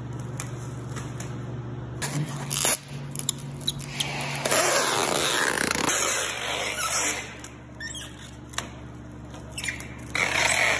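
Plastic stretch film crackling and squealing as it is pulled off a hand roll and wrapped around a large boxed machine, with foam corner blocks being handled against it. It comes in irregular bursts, the longest about two seconds near the middle and another near the end, over a steady low hum.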